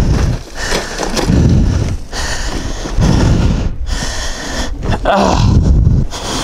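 A rider groaning and breathing hard right at the microphone after an ATV rollover, in uneven swells about a second long. Near the start, knocks and gravel scraping as the quad tumbles down the rocky slope.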